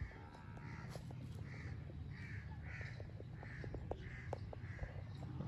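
A bird calling over and over: about eight short calls, roughly one every two-thirds of a second.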